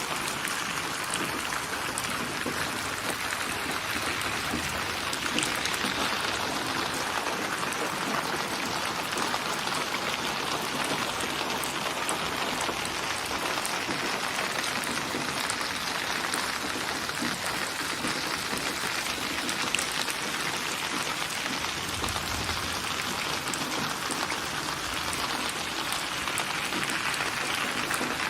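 Steady, heavy rain falling, a dense hiss with fine drop ticks throughout. About twenty-two seconds in, a brief low rumble.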